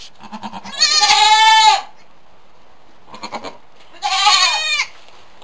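Newborn goat kid bleating twice: two high-pitched calls of about a second each, the second about four seconds in.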